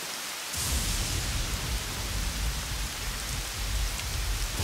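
Heavy rain sound effect: a steady hiss of rain that swells into a downpour about half a second in, with a low rumble underneath.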